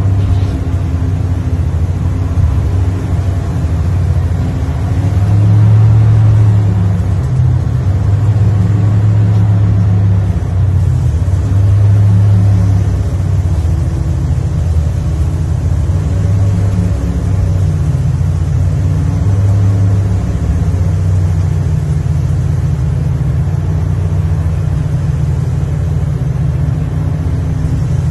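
Heavy dredging excavator's engine and hydraulics working a bucket, heard inside its cab: a loud, steady low drone that swells and eases every few seconds as the controls are worked.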